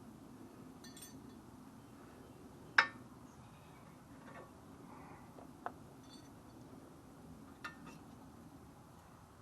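Light metallic clinks of brake pads and caliper-bracket hardware clips knocking together as the pads are worked onto the bracket; the loudest clink comes about three seconds in, with a few smaller taps later.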